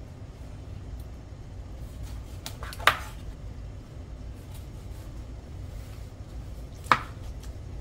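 Two sharp knocks of kitchenware being handled, about four seconds apart, over a low steady hum.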